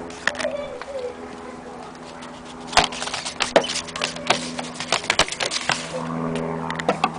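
Handling noise as a 78 rpm gramophone record is taken from its paper sleeve: a cluster of sharp clicks, knocks and paper crackle in the middle few seconds, over a steady low hum.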